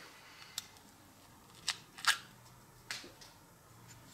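A few short, sharp clicks and light knocks, the loudest about two seconds in, as the parts of a restored bottle jack are picked up and handled on a wooden workbench.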